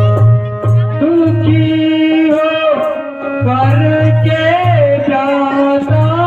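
Hindi song with live accompaniment: a voice holds long, wavering notes over steady sustained instrument tones and a repeating low drum beat.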